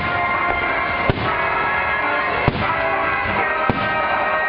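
Fireworks bursting with three sharp bangs, roughly a second and a half apart, over continuous music with long held notes.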